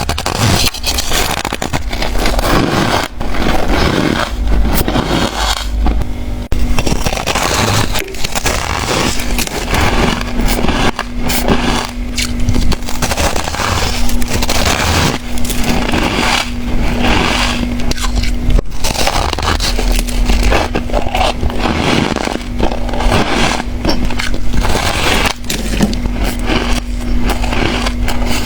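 White freezer ice and frost crunching as it is bitten and chewed, a dense run of close, crackly crunches and scrapes. A faint steady low hum comes and goes behind it.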